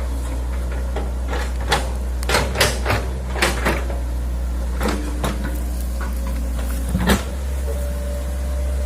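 Hitachi excavator's diesel engine running steadily under a low drone while the machine works, with a run of sharp clanks and knocks from about two seconds in to about seven seconds in, the loudest near the end.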